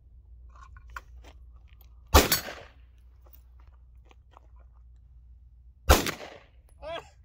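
Two pistol shots about four seconds apart, each a sharp crack with a short tail, with a few faint clicks before the first.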